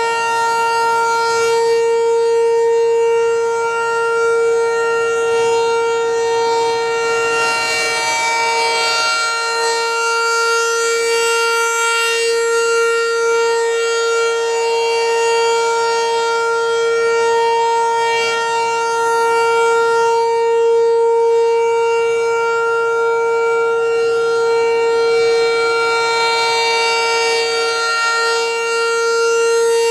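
American Signal T-128 electromechanical outdoor warning siren sounding the steady alert signal: one unbroken, unchanging pitch, loud, its level swelling and fading slightly.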